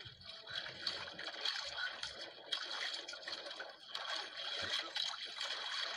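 Sea water lapping and trickling around a small outrigger boat.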